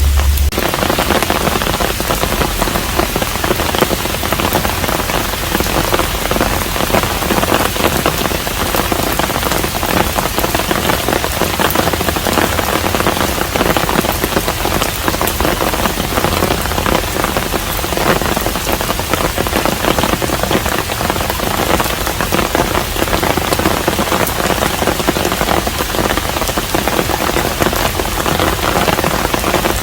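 Steady rain falling on a Korean hanok, a dense, even patter of many drops. A low hum cuts off about half a second in.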